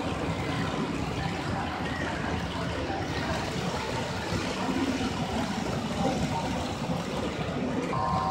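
Steady rumble and whir of H0-scale model trains running on a large layout, under the even background noise of an exhibition hall.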